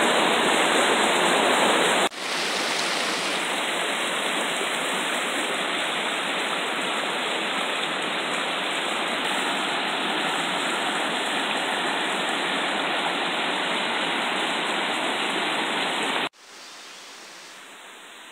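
Shallow mountain river rushing over rock ledges and a small cascade, a loud steady rush of water. It drops a little about two seconds in, and near the end cuts suddenly to a much quieter steady hiss.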